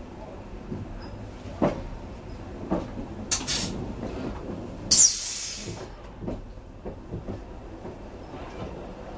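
Passenger coach rolling slowly over points into a 1435/1520 mm gauge-changing installation, its wheels clunking irregularly over switches and rail joints under a low rumble. Two sharp hisses of air cut in, a short one about three seconds in and a longer, louder one a couple of seconds later.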